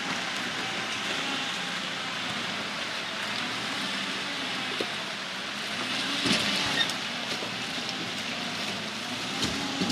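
Off-road vehicle's engine running, its pitch wavering up and down, under a steady hiss, with a few sharp knocks about six to seven seconds in.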